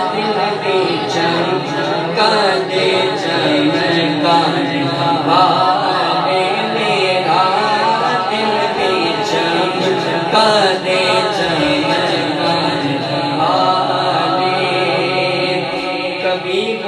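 Devotional singing of a naat in praise of the Prophet, in long, wavering, drawn-out vocal lines with no clear break.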